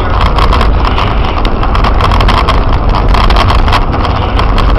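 Steady engine and tyre rumble heard inside a moving car on a snow-covered road, with frequent small clicks and knocks throughout.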